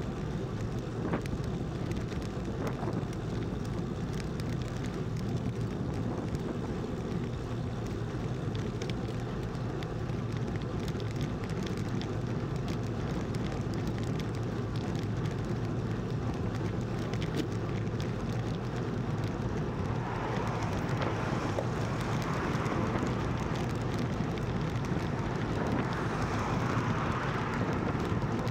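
Wind rushing over a Garmin Virb 360 camera's microphone on a road bike at speed, with a steady hum of tyres on tarmac. The rushing grows louder about twenty seconds in.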